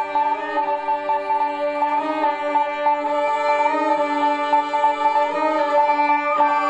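Instrumental ensemble music, a high note held steadily over shorter changing notes beneath.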